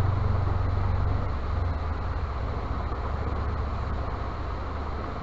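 A steady low hum over a constant rushing noise; the hum eases a little about a second and a half in.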